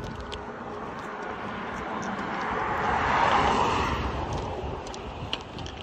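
A vehicle passing on the road: its tyre and engine noise swells to a peak about three seconds in, then fades away. Light sharp clicks, like trekking-pole tips striking the asphalt, sound now and then over it.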